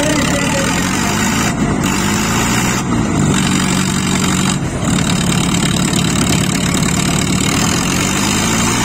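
Diesel tractor engines running hard and steady in a tug-of-war pull, two tractors straining against each other under heavy load.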